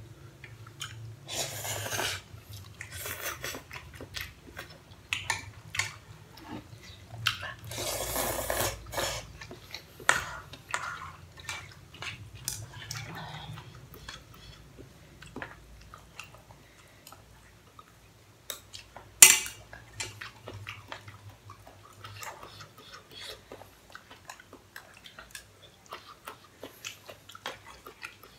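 Chopsticks clicking and scraping against a pan as pasta is picked up and eaten, with chewing and a couple of noodle slurps. One sharp clack about two-thirds of the way through is the loudest sound.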